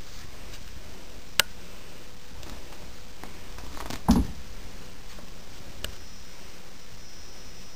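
Steady background hiss with a sharp click, then a short soft low thump about four seconds in, and a fainter click a couple of seconds later.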